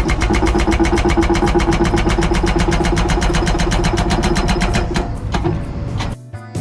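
Excavator-mounted hydraulic hammer pounding solid rock, a rapid, evenly spaced run of blows over the steady running of the machine's engine, stopping about five and a half seconds in. Music starts near the end.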